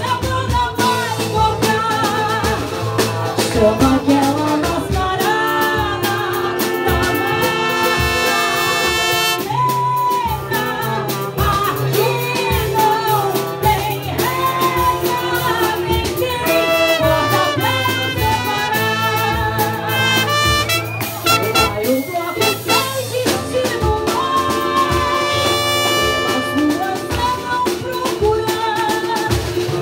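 Live small band playing an instrumental passage of a marcha-rancho: trumpet, trombone and saxophone carry long held melody lines over acoustic guitar, cavaquinho and a drum kit keeping a steady beat.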